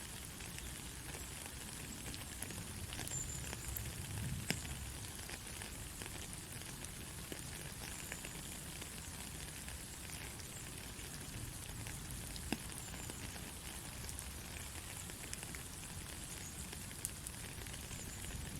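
Steady rain falling, a dense even patter of drops with a few sharper drips standing out now and then.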